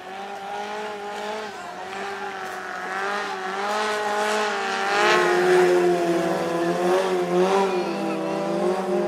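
Thai longtail racing boat engine running, growing louder over the first half and then holding, its pitch wavering slightly up and down.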